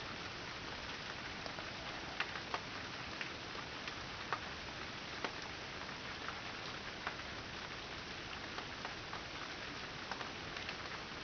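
Steady rain, with single drops ticking sharply at irregular intervals, a few every second or two.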